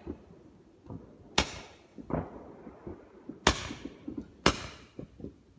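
Aerial fireworks bursting overhead: three loud bangs, about a second and a half in, at three and a half seconds and a second after that, each trailing off in an echo, with fainter pops between.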